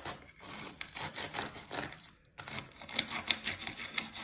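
A table knife sawing back and forth through the crisp breadcrumb crust of a pan-fried soy cordon bleu, in two bouts of rasping strokes with a short break about two seconds in.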